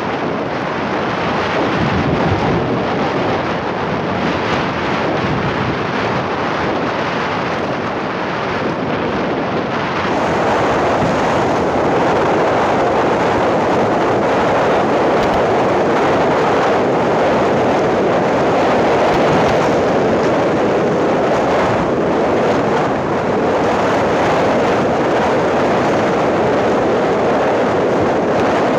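Wind rushing over the microphone together with the steady rumble of a vehicle and its tyres on a loose gravel road, a little louder from about ten seconds in.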